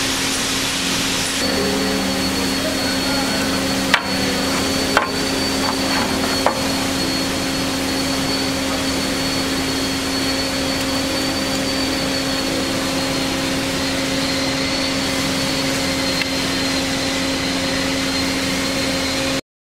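Hyd-Mech S-20A horizontal band saw running with a steady hum and a thin high whine. A hissing sound stops about a second and a half in, and three sharp clicks come between about four and six and a half seconds in. The sound cuts off abruptly just before the end.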